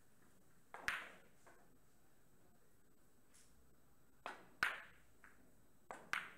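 Billiard balls clicking, three times. Each time a lighter tap is followed a fraction of a second later by a sharper ringing click, as a cue strikes a ball and then ball strikes ball.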